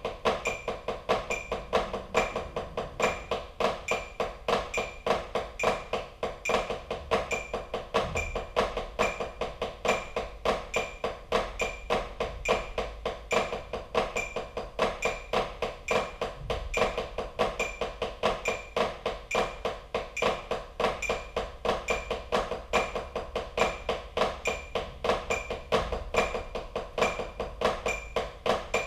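Drumsticks playing a steady stream of quick strokes on a rubber drum practice pad, roll exercises, with a brighter click recurring about twice a second.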